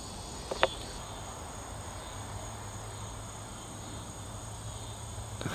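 Crickets chirping steadily, with two sharp clicks about half a second in.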